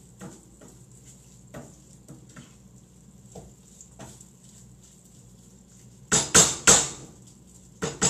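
Wooden spoon stirring chopped vegetables in a frying pan, with light scrapes and taps. About six seconds in come three loud, sharp knocks of the kitchen utensils in quick succession, and two more near the end.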